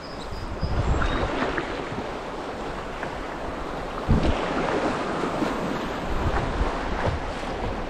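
River water rushing and waves splashing against the Esquif Pocket Canyon solo canoe as it runs a riffle, with paddle strokes and wind buffeting the microphone. A sharper splash comes about four seconds in.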